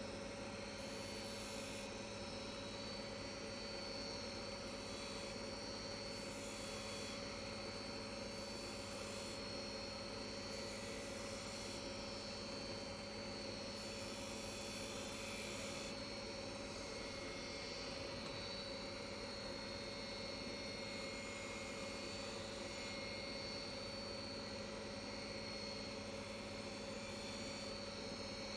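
Wood lathe running steadily, a constant motor hum with a few steady tones over a light haze; the high end shifts a little every second or so, as light cuts are taken on the spinning maple blank.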